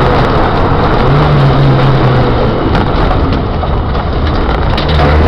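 A car's engine and tyre noise, heard from inside the cabin while driving over a rough, wet concrete road. The engine hum fades in the middle and returns near the end, with a few light rattles.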